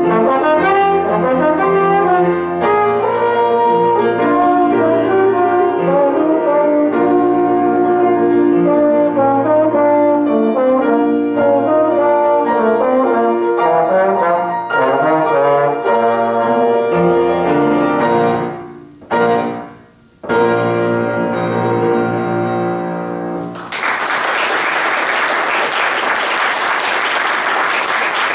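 Slide trombone playing a classical solo with piano accompaniment, with a short break in the playing about two-thirds of the way through. The piece ends about 24 seconds in and audience applause follows.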